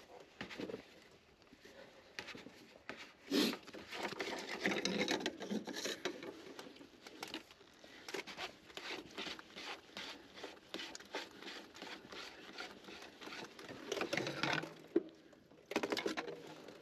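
Hands working on parts and tools: an irregular patter of small clicks and knocks, busiest from about four to seven seconds in and again near the end.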